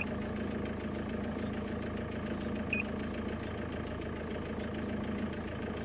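Peugeot 406 HDi diesel engine idling in a steady, even hum, heard from inside the car. A short electronic beep from the handheld scan tool sounds about midway.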